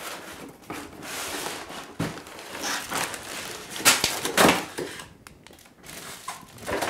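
Cardboard box being handled: rustling, scraping and crinkling of cardboard, with a few sharp knocks, two of them close together about four seconds in.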